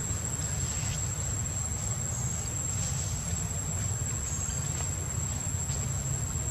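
A steady, high-pitched insect drone held on one tone, over a low rumble.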